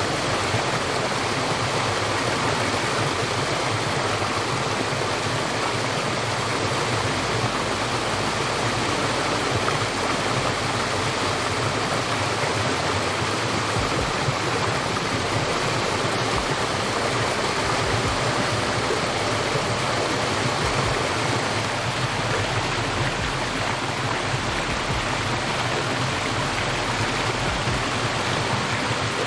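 Steady, even rushing of water with no breaks or single drips standing out.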